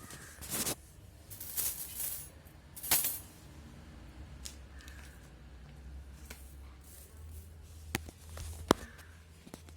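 Small metal bicycle parts and hand tools being handled: scattered clinks, jingling rattles and clicks, with two sharp clicks near the end, over a low steady hum.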